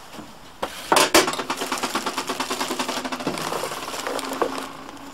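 Packaging being handled: a couple of sharp knocks as moulded pulp trays are pulled away, then a plastic bag crinkling in quick, dense crackles as the wrapped burner is lifted out of it.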